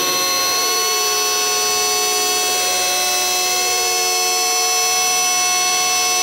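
Steady machine-like drone: several held high tones over a hiss, with lower tones that waver slowly in pitch.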